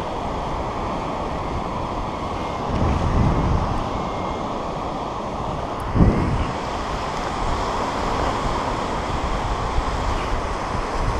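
Wind buffeting the camera microphone in a steady rumble, with strong gusts about three seconds in and again about six seconds in.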